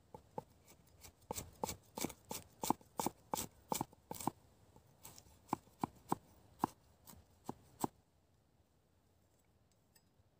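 Cleaver chopping garlic cloves on a wooden cutting board: a quick series of sharp knocks of the blade on the board, about three a second, with a short pause midway. The chopping stops about eight seconds in.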